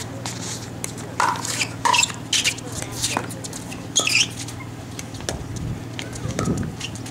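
Paddles striking a plastic pickleball in a fast doubles rally: a string of sharp, irregularly spaced pocks.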